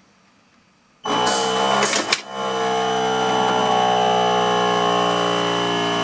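Motorised actuator of a 300 mm ToggleBlok containment valve starting about a second in and running steadily as it drives the valve open, with a steady high tone over the motor whine and a brief dip near two seconds.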